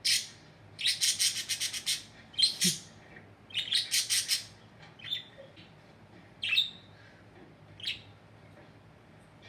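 Pet budgerigar chirping: sharp high notes in two quick runs of about eight chirps a second, then a few single chirps that space out and stop near the end.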